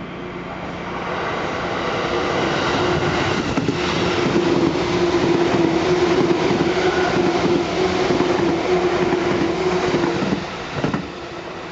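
Seibu 2000 series electric commuter train passing at speed, its wheels running on the rails with a steady hum. It grows louder over the first few seconds and falls away about ten seconds in.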